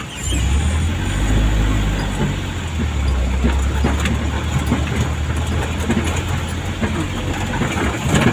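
A vehicle's engine heard from inside its cab: a steady low hum that swells about half a second in as the vehicle pulls away, with scattered small rattles.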